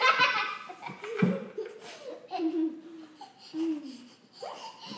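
Children laughing in repeated bursts, loudest at the start.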